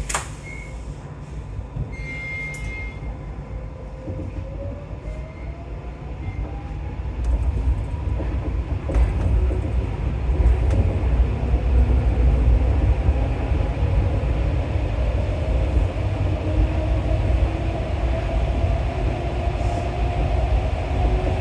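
Rubber-tyred MP14 metro train pulling away and running through the tunnel: a click at the start, then the traction motors whine, rising in pitch as it gathers speed over the first several seconds, over a low rumble of the running gear that grows louder and then holds steady.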